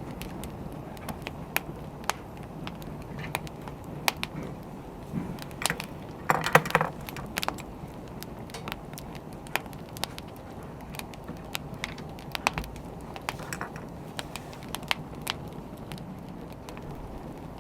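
Wood fire crackling: a steady low hiss with irregular sharp pops and snaps, and a louder flurry of crackles about six seconds in.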